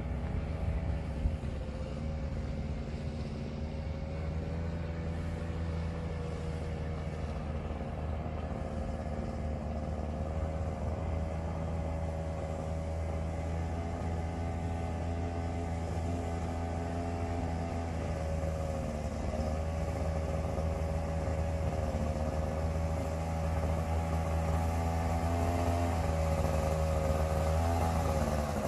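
Small ultralight aircraft engine running steadily, its pitch wavering a little, and growing somewhat louder in the last few seconds as the aircraft comes closer.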